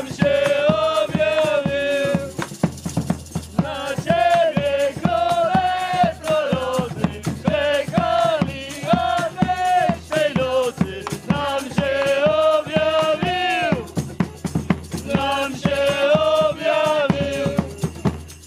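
Live music: a sung melody with a rattle shaken in a steady beat.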